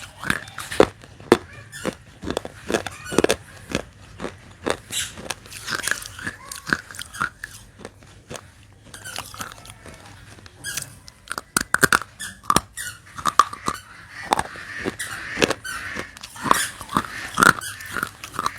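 Dry baked clay being bitten and chewed: a dense, irregular run of sharp crunches and cracks, with a slightly sparser stretch about halfway through.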